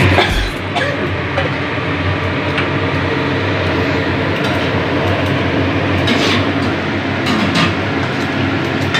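Metal ladle clinking and scraping a few times against a steel wok of simmering fish curry, over a steady rumbling background noise.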